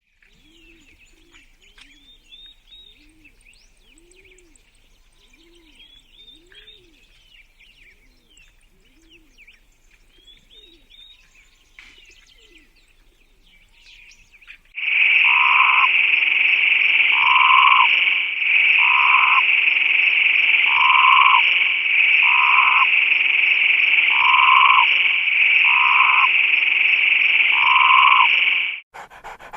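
Animal calls. For about fifteen seconds there is faint chirping and a repeated low call; then a loud, steady, high-pitched chorus starts, with a lower pulse about every second, and stops just before the end.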